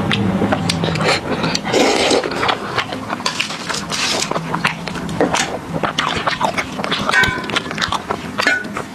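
Close-miked eating of noodles: slurping and wet chewing with many small smacks and mouth clicks, and a couple of light clinks near the end.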